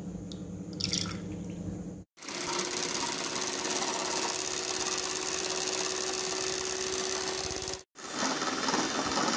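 Electric hand mixer running at a steady speed, its beaters whisking an egg with vanilla until fluffy: a steady motor hum under a whirring hiss. It starts about two seconds in and breaks off abruptly for a moment near the end before running on.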